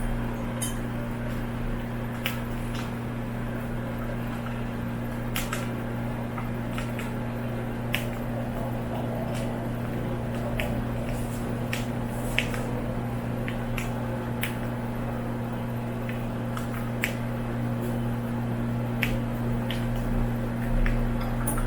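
Cockatiels cracking millet seeds in their beaks: sharp, irregular clicks, about one every second or two, over a steady low hum.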